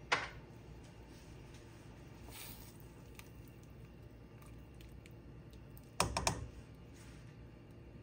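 A spatula knocking against a stainless steel soup pot during stirring: one sharp knock at the start and a quick cluster of three knocks about six seconds in.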